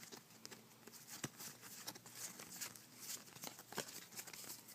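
Faint, scattered taps and light rustles of trading cards and foil card packs being handled and set down.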